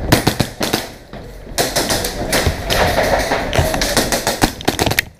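Airsoft gunfire at close quarters: fast runs of sharp cracks from shots and BB impacts, with a short lull about a second in.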